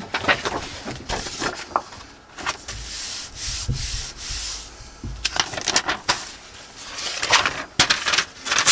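Paper being handled and rubbed on a work surface: irregular scratchy rubbing and rustling with small clicks and taps, growing louder in stretches, including near the end.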